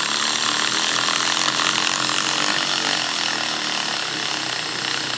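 Cordless electric ratchet running steadily with a motor whine, driving down a bolt-on valve spring compressor to compress a valve spring on an LS1 cylinder head; it stops suddenly near the end.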